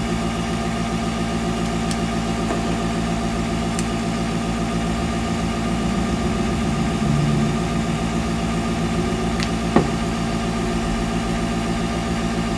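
Small airbrush compressor motor running with a steady hum, with one sharp click about ten seconds in.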